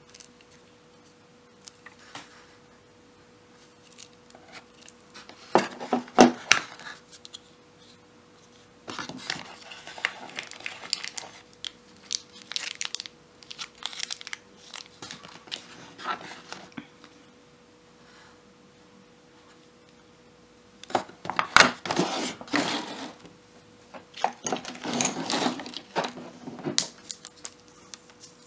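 Unboxing handling noise: plastic packaging crinkling and tearing in irregular bursts, with small clicks and taps of accessories being picked up and set down. The bursts are loudest about six seconds in and again around twenty-two seconds in, over a faint steady hum.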